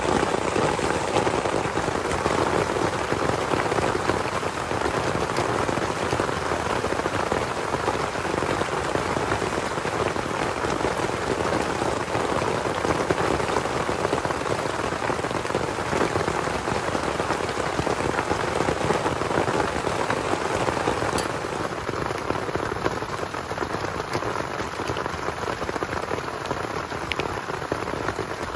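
Heavy rain falling steadily, a dense even patter, easing slightly near the end.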